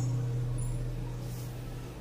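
The last low note of the background guitar music ringing on and slowly fading away.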